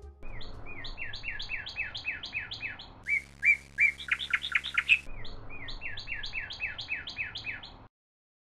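A bird chirping in a fast series of short, falling notes, about four or five a second, with a louder stretch in the middle. It cuts off abruptly near the end.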